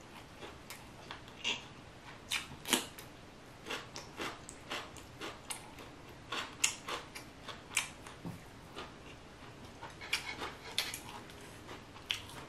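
Close-miked chewing of crunchy raw vegetables: irregular crisp crunches and wet mouth clicks, several a second at times, with the loudest crunch about two and a half seconds in.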